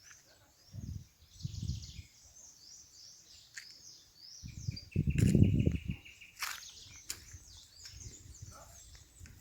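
Several wild birds chirping and whistling, with one giving a fast, even trill about halfway through. Low rumbles come and go underneath, loudest around five seconds in.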